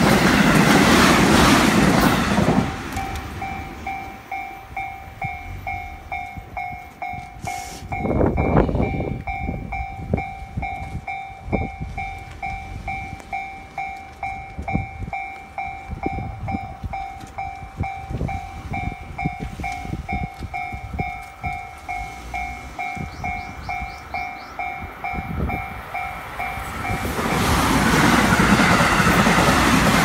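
An electric commuter train finishes passing over the crossing, its wheels clattering on the rails. Once it has gone, the level crossing's warning bell rings on with a steady, evenly repeating ding. Near the end another electric train rushes in and drowns the bell.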